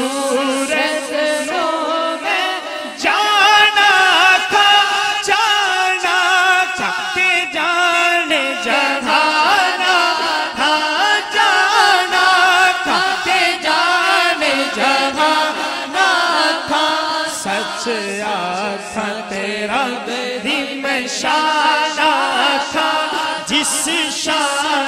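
Male naat reciter singing a devotional naat into a microphone, one solo voice in long, wavering held phrases.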